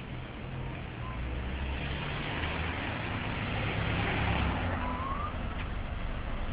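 Traffic on a wet road: a steady hiss and low rumble that swells as a vehicle passes about four seconds in, then eases. A brief rising squeak comes just after the peak.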